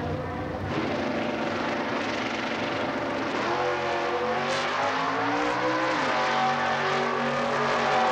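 Two stock-class drag racing cars launching off the starting line at full throttle about a second in, their engines climbing in pitch as they run down the track. There is a drop in pitch about six seconds in, from a gear change, then the engines climb again.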